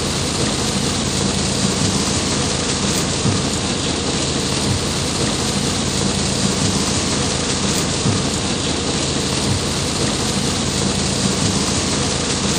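Heavy tropical downpour: a dense, steady rain hiss pouring onto flooded pavement.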